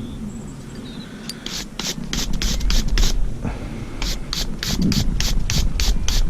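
Quick scraping strokes of a hand tool cleaning a worn metal thread on the roller's bearing assembly, about three or four a second. There is a short run of strokes, a pause, then a longer run.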